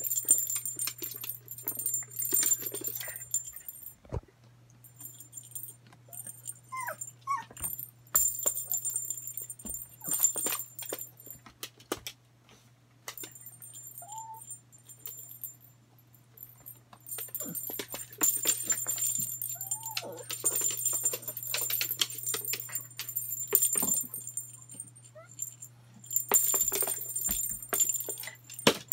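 A small dog playing with a plastic ball on a wooden floor: bouts of jingling, rattling and clattering, with a few short high whines from the dog.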